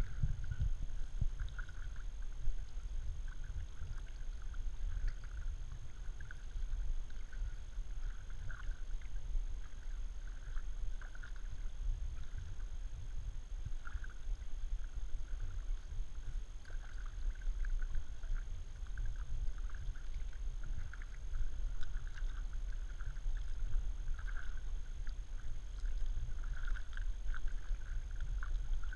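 Kayak being paddled through still water: paddle blades dipping and dripping in an irregular rhythm over a steady low rumble.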